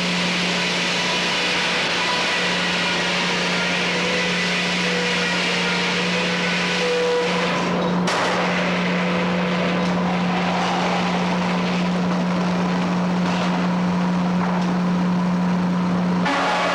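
Frick 00 circular sawmill running: a steady engine drone with a loud hiss over it. The sound breaks off and picks up again abruptly about eight seconds in.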